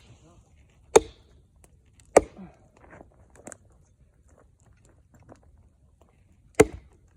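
Axe chopping wood: two sharp chops a little over a second apart, then a third about four seconds later, with faint knocks of wood between.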